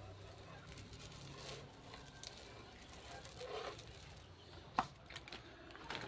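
Faint crunching and clicking of small river gravel being pushed and spread by hand over wet soil, with one sharp pebble click a little before five seconds in.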